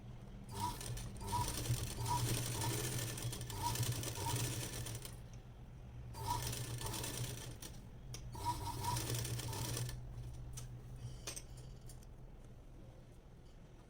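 Sewing machine stitching in bursts: one run of about four seconds, then two shorter runs, then it stops and a few light mechanical clicks follow.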